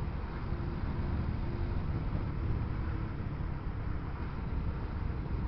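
Steady low rumble of engine and road noise from a vehicle driving through city traffic.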